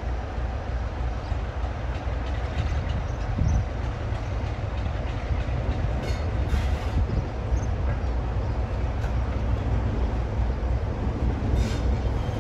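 Class 47 diesel locomotive 47449, with its Sulzer twelve-cylinder engine, running with its train. It makes a steady low rumble, with a few faint clicks from the wheels on the rails.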